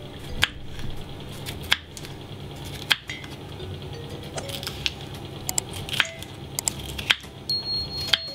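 Kitchen knife slicing a green bell pepper on a bamboo cutting board: sharp knocks of the blade hitting the board, the strongest roughly once a second, with softer cutting sounds between.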